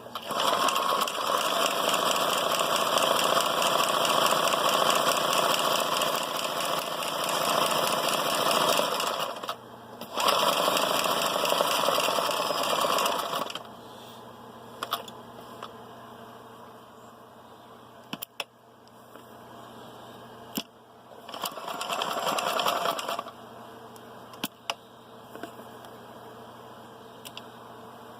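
Kenmore 158.10400 three-quarter-size all-metal sewing machine running in bursts: a long run of about nine seconds, a brief stop, about three seconds more, then another short run of a couple of seconds later on. Scattered single clicks are heard between the runs.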